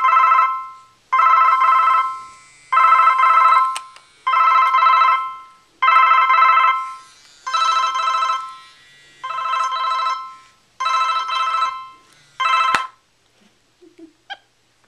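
Cordless phone handset ringing with an electronic trilling ring. There are about nine rings, each about a second long and coming every second and a half, and the last one is cut short about thirteen seconds in.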